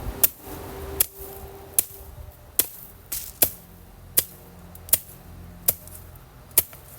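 Machete (cutlass) chopping into the woody stem of a small citrus tree near its root. There are about nine sharp strikes, roughly one every three-quarters of a second.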